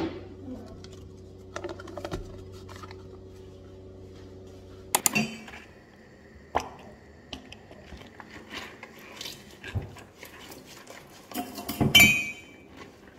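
Chai cups being hand-washed at a steel kitchen sink with a sponge and rubber-gloved hands: scattered ceramic clinks and knocks, with the loudest clatter near the end. Before that, for about five seconds, small handling taps on a plastic food tub over a steady low hum.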